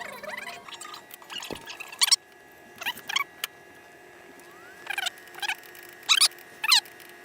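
A small animal's high-pitched chirps or squeaks: about seven short calls, each sweeping downward, some singly and some in quick pairs, starting about two seconds in. A faint steady tone runs underneath.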